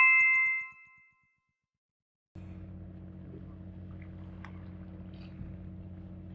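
A bright, bell-like chime sound effect rings and fades away within about a second. After a short silence, a steady low mechanical hum begins about two and a half seconds in.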